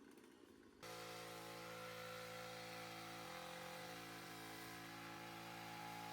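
Faint, steady hum of a small engine, starting about a second in and running evenly, typical of a landscaper's gas-powered trimming equipment.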